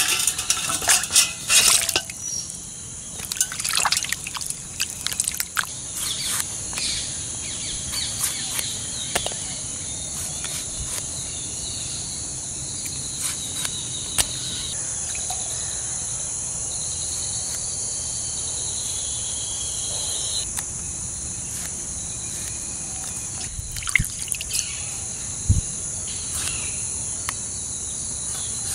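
Tomatoes dropped into a steel basin of water and washed by hand, splashing and dripping in the first few seconds, followed by scattered light knocks as the tomatoes are handled and cut. A steady high chirring of insects runs throughout.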